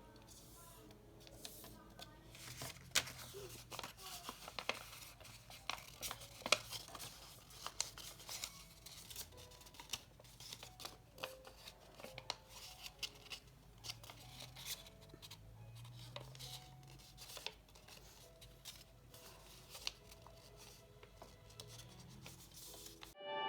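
Paper being folded and creased by hand: soft rustling broken by irregular sharp crease snaps. Music cuts in abruptly at the very end.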